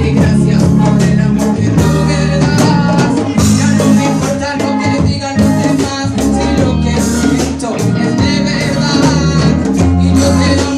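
Loud reggae-style music played through a sound system: a heavy, steady bassline under guitar and a singing voice.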